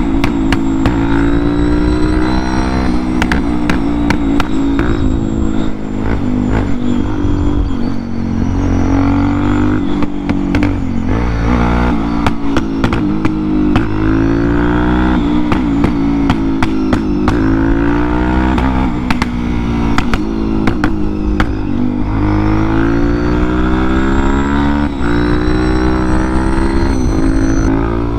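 Motorcycle engine under way, its pitch climbing under throttle and dropping back again and again as the rider accelerates and shifts. A scatter of short sharp pops falls around the middle.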